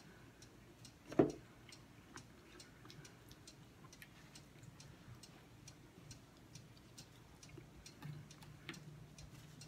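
Soft, regular ticking, a few ticks a second, with one louder knock about a second in. A low steady hum comes in near the end.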